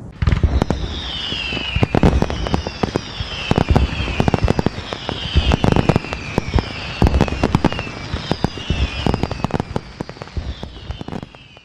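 Fireworks going off: many sharp bangs and crackles mixed with repeated falling whistles, one about every second and a half. The barrage fades away near the end.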